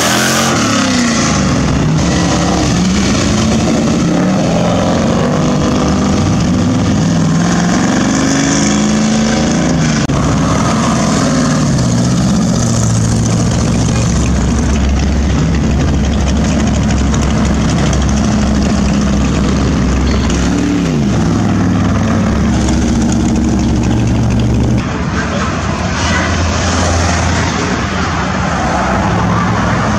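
Loud car engines revving hard and accelerating away, pitch climbing and falling again and again as the cars pull off. The sound changes abruptly about 25 seconds in.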